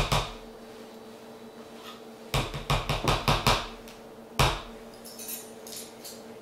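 A metal spoon knocking against a plastic deli container to shake off a spoonful of mustard: a quick run of about seven light taps in just over a second, then one sharper single knock, followed by a few faint clicks.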